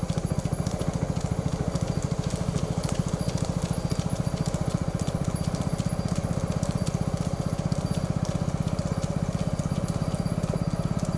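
Hooves of a young bull clopping in a quick, even rhythm on a tarmac road, with motorcycle engines running slowly just behind it.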